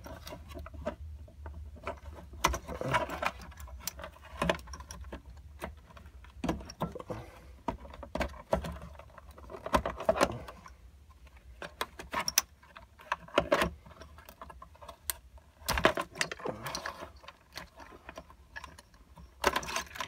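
Hands working in an electric scooter's metal deck compartment, pulling at wiring and plastic connectors: irregular clicks, taps and rustles.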